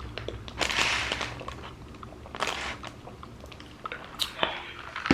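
Close-miked mouth sounds of a person eating and drinking: a few short noisy sips or bites with chewing in between.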